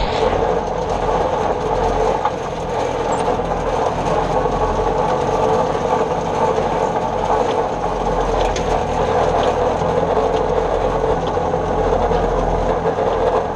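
New Holland Super 66 square baler running steadily, a constant loud mechanical noise without a break.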